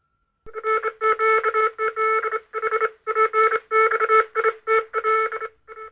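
Short bursts of electronic beeping tones at a few fixed pitches, about two a second, starting about half a second in.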